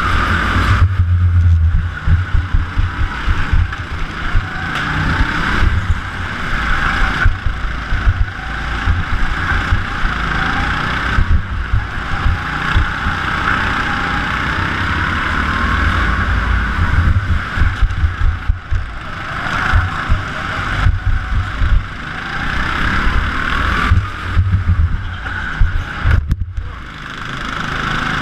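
Go-kart running hard around an indoor track, its motor note rising and falling with speed through the corners, over a heavy, choppy rumble of wind and vibration on the onboard camera's microphone. The sound briefly drops near the end.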